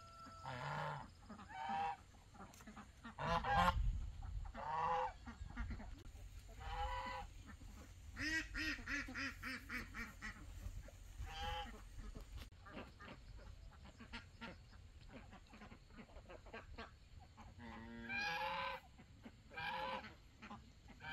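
Geese honking, a series of short, loud pitched calls at irregular intervals.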